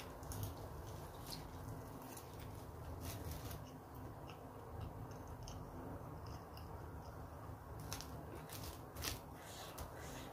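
A person chewing a mouthful of corn rice, with scattered short clicks and taps, the loudest near the end, over a steady low hum.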